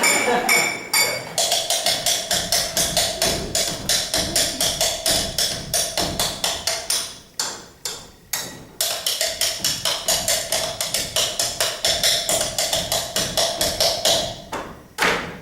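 Fast, even rhythmic tapping on cups and cutlery, about four or five taps a second, over a steady held tone. The rhythm breaks off briefly twice about halfway through and stops near the end.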